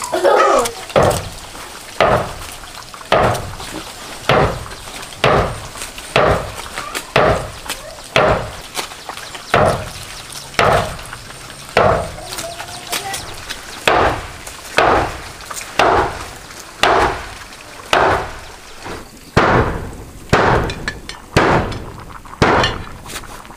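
Repeated sharp blows, about one a second at an even pace, each with a short ringing decay.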